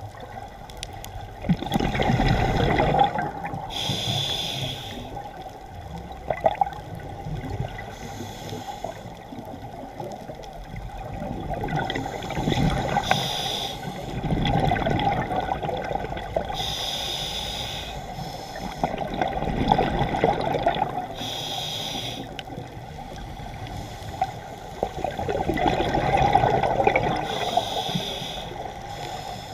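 Scuba diver breathing through a regulator underwater: a short hiss on each inhale and a bubbling rush of exhaust bubbles on each exhale, repeating in a slow rhythm every several seconds.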